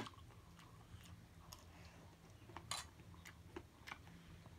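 Near silence with a handful of faint, scattered clicks from people eating with spoons out of steel bowls.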